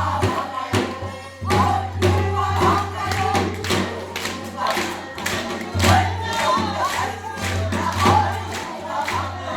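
Korean Namdo folk singing (namdo sori), sung with accompanying percussion strokes.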